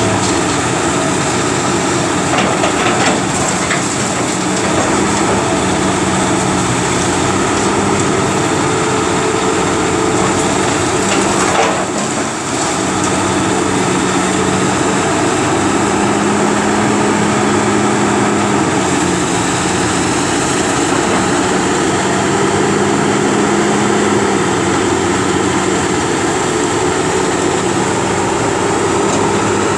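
Cat 330B hydraulic excavator's diesel engine running steadily under working load, its note shifting slightly up and down as the demolition grapple moves. A couple of short knocks sound, about three seconds in and again near twelve seconds.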